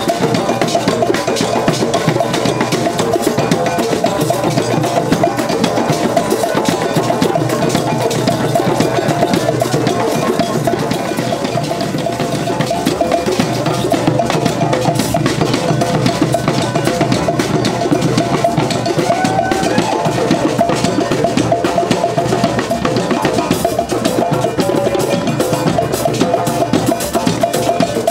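A group of hand drums, djembes among them, played together in a dense, steady rhythm.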